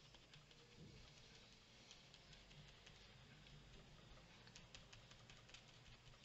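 Faint light tapping and patting: a small foam dauber dabbed onto a paper tag and an acrylic block, a little busier near the end, over quiet room tone.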